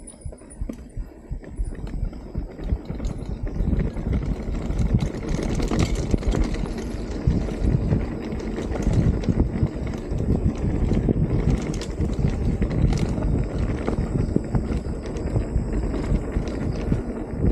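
Mountain bike riding over a rough dirt trail: tyres rumbling and the bike rattling over bumps, with wind rushing over the microphone. The noise builds over the first few seconds as speed picks up, then stays steady.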